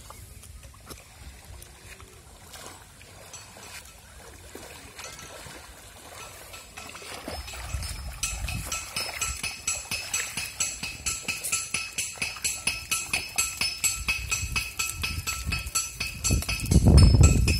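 Water sloshing and trickling around wading legs in a shallow river. About halfway in, background music with a fast, even jingling beat takes over, and a loud low rumble comes near the end.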